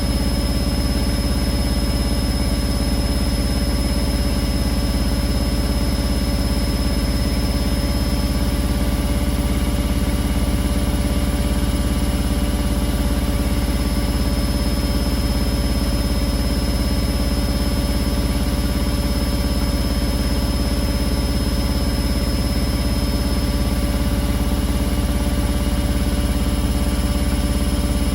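Beko WA 1050 washing machine running at a constant speed: a loud, steady deep hum with thin steady whining tones above it.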